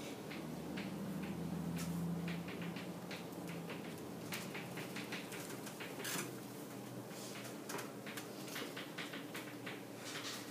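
Chalk tapping and scratching on a chalkboard as someone writes: a run of irregular short clicks. A low steady hum sits under it for the first few seconds.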